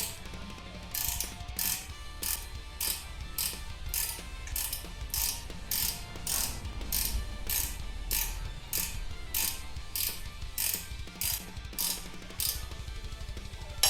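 Ratcheting wrench clicking in short, even back-strokes, about one and a half strokes a second, as a nut on the horn mounting bracket is run down.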